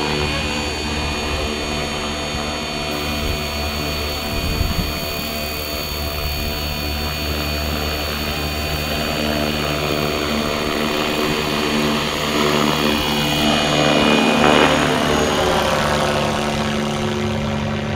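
Electric RC helicopter (FlyWing FW450 V2 on a 3S LiPo) running: a steady whine of the brushless motor and the drone of the spinning main rotor. About two-thirds of the way through the pitch sweeps and the sound swells to its loudest as the helicopter manoeuvres past.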